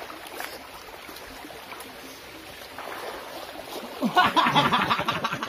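Stream water running with a low, steady hush as a person swims in it. About four seconds in, a much louder spell of quick, choppy sound takes over.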